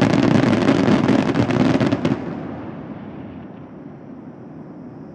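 Closing barrage of a fireworks finale: a dense, rapid run of firework bangs and crackle that stops about two seconds in, followed by a fading echo.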